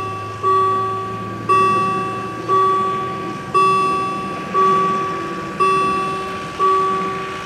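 Level crossing warning bell ringing steadily, about one strike a second, each strike dying away before the next. It signals an approaching train while the red lights show and the barrier booms lower.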